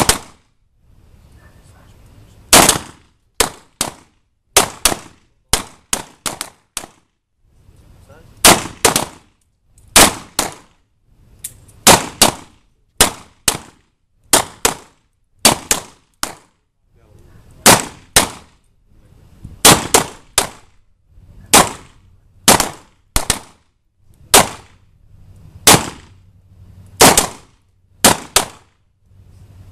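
Gunfire from several shooters firing at will on a range line: an irregular string of single shots, often two in quick succession, each with a short ringing tail.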